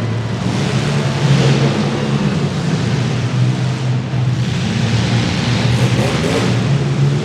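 Demolition derby compact cars' engines running, with swells of revving and rushing noise over a steady low engine note.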